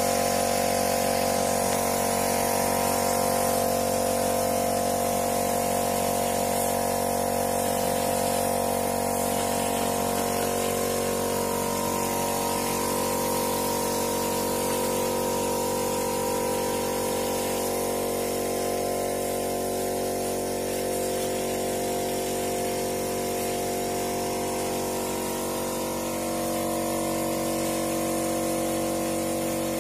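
Steady hum of a running machine motor, its pitch shifting slightly about twelve seconds in and again near the end.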